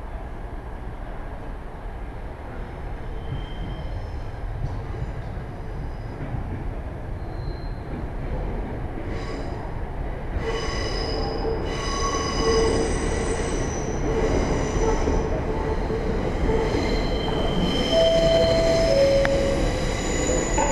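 LMS Princess Royal class 4-6-2 steam locomotive 6201 Princess Elizabeth drawing slowly into the station with its train. A low rumble grows steadily louder, and high metallic wheel squeal sets in about halfway and carries on.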